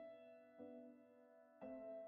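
Quiet, slow background piano music, with a soft note or chord struck about once a second and left to fade.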